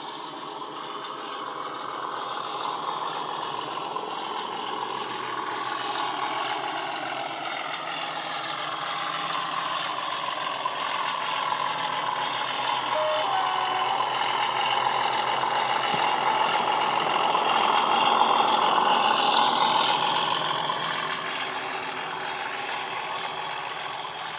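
ESU LokSound sound decoder in an OO gauge model Class 37 diesel, playing a Class 37's English Electric engine sound through the loco's speaker as it runs under power. It gets louder as the model approaches, is loudest about three-quarters of the way through as it passes, then fades as it moves away.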